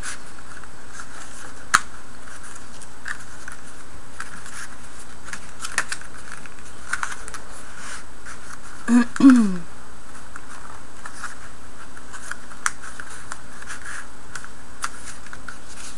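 Cardstock strips being pushed and slid over and under one another as the last strip is woven into a paper lattice: scattered light clicks and scrapes over a steady hiss. A short sound that falls in pitch comes about nine seconds in.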